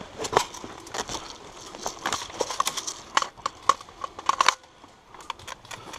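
Irregular clicks and crunches of someone moving on foot, with a dense cluster between about three and four and a half seconds before it goes quieter: footsteps on a dry woodland path and the rattle of rifle and kit.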